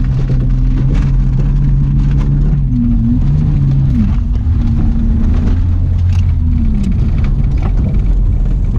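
Car engine running steadily, its note dipping and rising a few times as the revs change.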